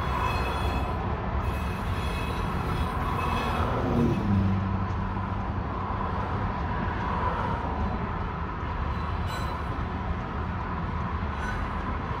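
Union Pacific mixed freight train's cars rolling past: a steady rumble of steel wheels on rail. About four seconds in, a tone falls in pitch and settles into a low hum.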